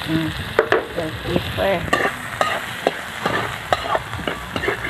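Sliced carrots, red bell pepper, onion, garlic and ginger sautéing in hot oil in a metal wok, sizzling while being stirred. Irregular clinks and scrapes of the spatula against the pan, several a second.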